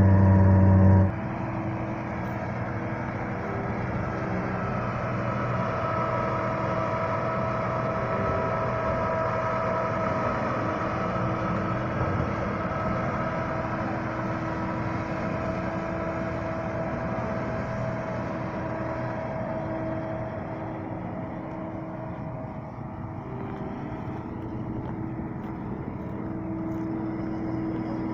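Combine harvester running steadily: a continuous mechanical drone with steady whining tones. It is louder for about the first second, then drops to a lower, even level.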